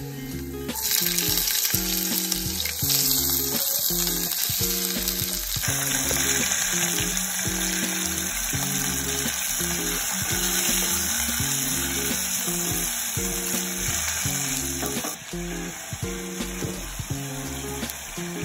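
Carrots and chicken pieces sizzling in hot oil in a small saucepan, stirred with a wooden spatula; the sizzle starts about a second in and grows louder about six seconds in. Background music with a steady beat plays underneath.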